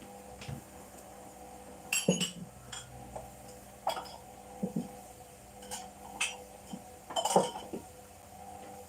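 Small hard items such as containers being handled and set down one after another: irregular clinks and knocks, the loudest a quick cluster about seven seconds in.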